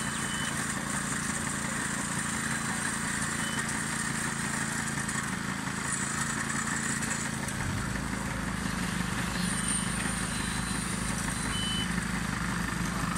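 Steady drone of machinery running, engine-like. A deeper low hum joins about eight seconds in.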